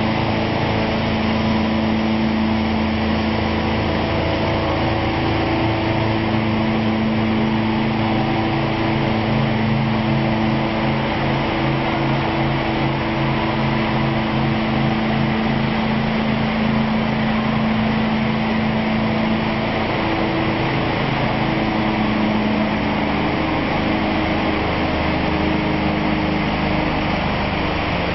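Wood grinder and its electric-motor-driven centrifugal sawdust blower running steadily: a continuous machine hum with several fixed tones over an even hiss.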